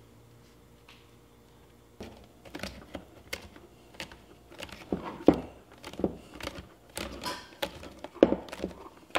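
Hard plastic snowmobile glovebox parts being handled and fitted together on a wooden bench: irregular clicks, knocks and light rattles that start about two seconds in.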